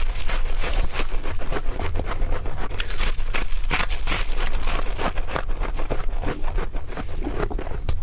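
A person taking fast bites of freezer frost, a rapid run of crisp crunches and chewing.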